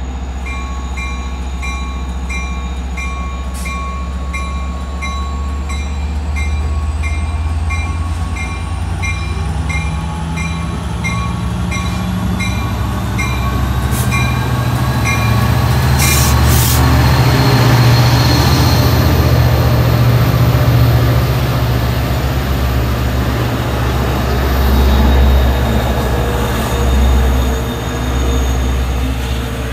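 Long Island Rail Road diesel locomotive hauling a short inspection train past at a station: the engine's low drone builds to its loudest a little past halfway as the locomotive goes by, then the cars and a second locomotive roll past. Through the first half a bell dings at a steady, quick beat, stopping as the locomotive passes.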